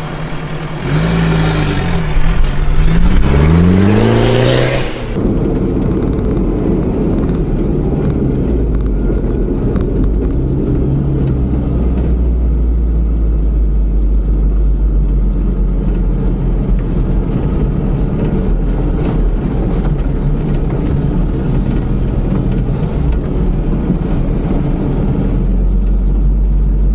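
Toyota Land Cruiser off-road race truck's engine revving, its pitch climbing and dropping three times in the first few seconds as it accelerates away. It then runs steadily and loudly, heard from inside the cab with some rattling.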